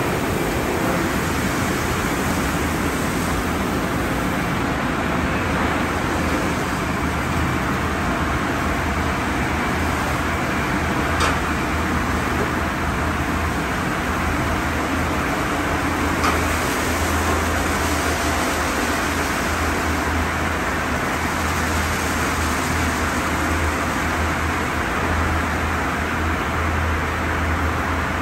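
Steady rush of water spray and machinery from a Sonny's conveyor car wash tunnel in operation, with a low hum underneath and a couple of faint clicks.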